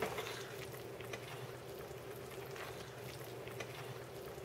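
Faint steady hum, a low tone with a higher one above it, with a few light ticks and knocks from handling.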